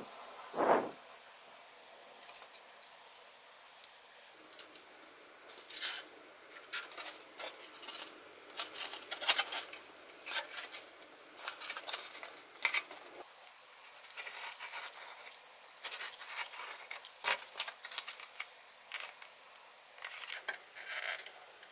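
Depron foam sheets being cut and handled: irregular short scratching, rubbing and squeaking of foam against foam and fingers.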